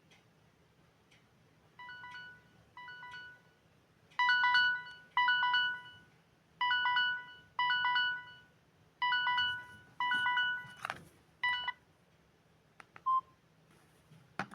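Samsung GT-E1081T mobile phone's timer alarm tone going off: short chord-like beeps in pairs, the first pair quiet, then four louder pairs about every two and a half seconds, stopping about 12 seconds in. A few clicks follow near the end.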